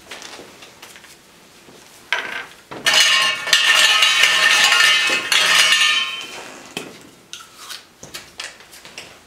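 Draw lots being stirred by hand inside a metal trophy cup, rattling and clinking against its sides. A short rattle comes about two seconds in, then about three seconds of steady clattering, then a few lighter clicks.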